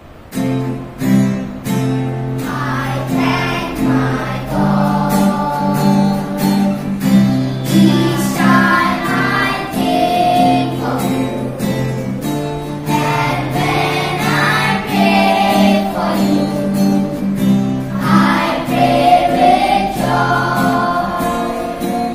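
A song sung by a group of voices over a backing of held chords that change every couple of seconds.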